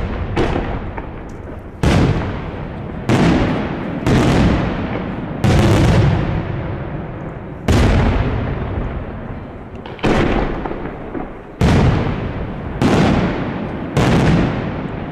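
Daytime aerial firework shells bursting overhead: about ten loud booms, one every one to two seconds, each with a long echoing tail.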